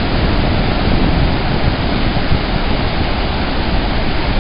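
Hukou Waterfall on the Yellow River: a loud, steady rush of falling water.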